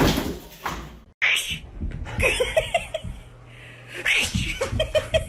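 A single loud sneeze at the start. After a cut, a person's quick, repeated giggling builds near the end.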